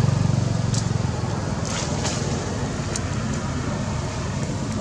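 A steady low engine rumble, like a motor vehicle running nearby, with a few faint high ticks.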